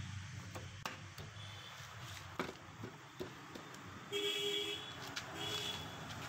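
A socket wrench working the bolts of a Vespa scooter's belt-drive cover: a few scattered metal clicks and knocks. About four seconds in, a vehicle horn sounds twice in short toots, the loudest thing here.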